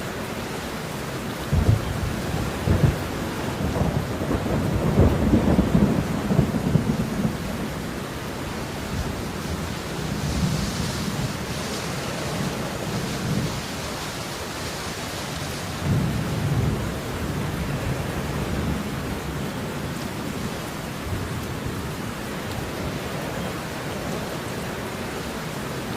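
Steady falling rain with deep rolls of thunder rumbling in several times, the longest about four to seven seconds in.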